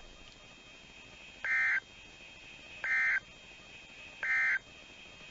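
Three short bursts of NOAA Weather Radio SAME digital data tones, each about a third of a second and evenly spaced about 1.4 s apart. This is the pattern of the End-of-Message (NNNN) code that closes a warning broadcast. A faint steady high whine runs underneath.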